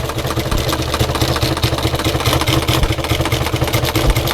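Sewing machine running steadily at speed, stitching with a rapid, even mechanical clatter.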